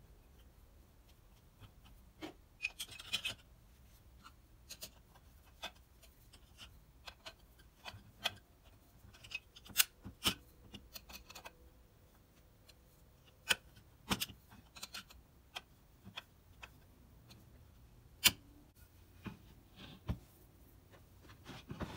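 Irregular sharp metal clicks and clinks from the cast-iron parts of a Stanley No. 5 bench plane being handled and fitted together, with a short scrape about three seconds in.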